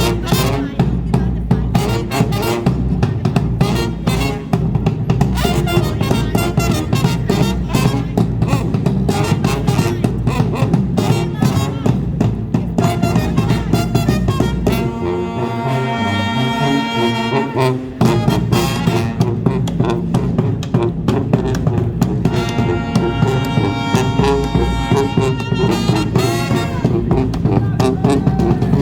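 Live street band of brass and drums playing an upbeat number. Drums hit steadily throughout, and held horn chords stand out about fifteen seconds in, where the drums briefly drop back, and again a few seconds later.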